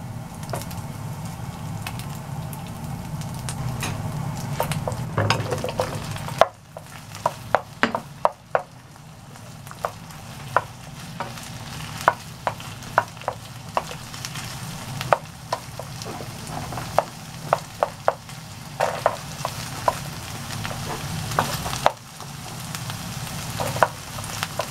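Minced meat and eggplant sizzling in a nonstick frying pan, with a steady frying hiss. A wooden spatula stirs the food and knocks against the pan, making frequent sharp clicks. The sizzle drops off abruptly twice.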